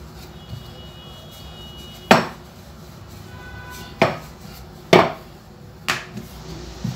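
Wooden rolling pin rolling out chapati dough on a kitchen countertop, with four sharp knocks spaced a second or so apart, starting about two seconds in.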